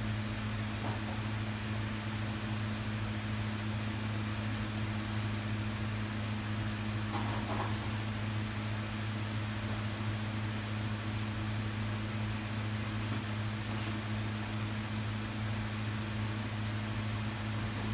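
Steady hum of a kitchen appliance's fan and motor, with a low electrical drone under an even rush of air and a couple of faint ticks about seven seconds in.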